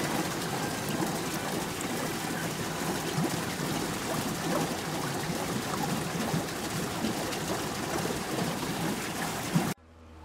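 Steady splashing, trickling water, with a brief sharp bump just before it cuts off suddenly near the end.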